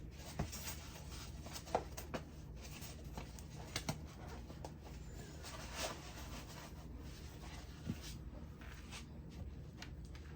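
Handling noises: soft rustling and brushing swishes with a few light knocks and clicks scattered through, over a low steady hum.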